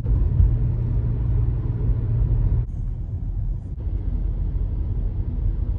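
Steady low rumble of a car heard from inside its cabin, with a low hum that drops away about halfway through.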